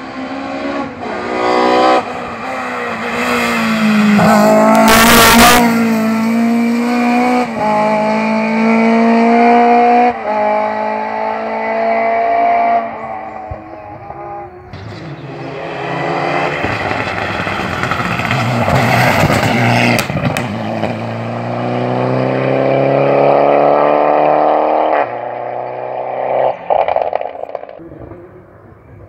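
Rally car engine at full throttle, revs climbing and dropping in steps with quick gear changes, in two loud spells. A short loud rush of noise breaks in about five seconds in.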